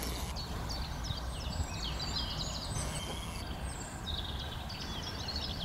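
Birds singing: a steady stream of quick, high chirps and twitters over a low, steady rumble.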